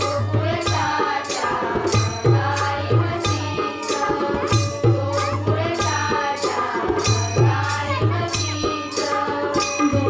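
Bhajan music played on a hand drum in a steady rhythm, with bright metallic percussion struck about three times every two seconds over held melodic notes.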